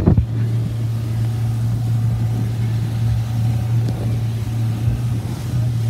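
Pontoon boat's outboard motor running steadily underway, a low even hum, with a brief knock right at the start.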